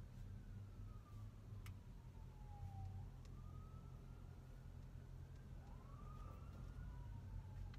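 Faint emergency-vehicle siren wailing, its pitch slowly falling and rising again over a low steady rumble. A single click sounds about two seconds in.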